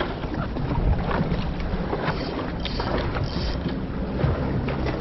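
Wind buffeting the microphone over the steady low rumble of a fishing boat at sea, with a few short hissing sounds between two and three and a half seconds in.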